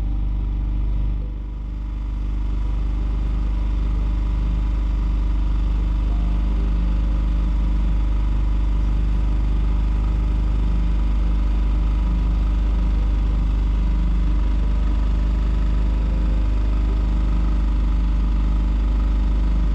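A small sailboat's motor runs steadily under way with an even drone. There is a brief dip in level about a second in.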